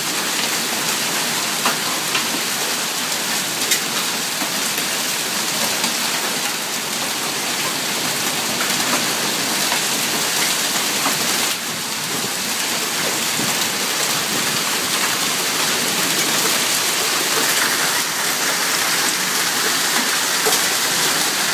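A hailstorm: hail and rain pouring down steadily, a dense even hiss with a few sharper ticks of stones striking.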